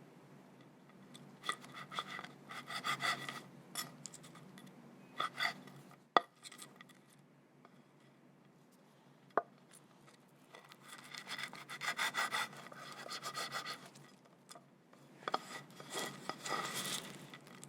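A kitchen utensil scraping against a mixing bowl as it works thick cookie dough, in several bursts of a few seconds each. Two sharp clinks of the utensil against the bowl come in between.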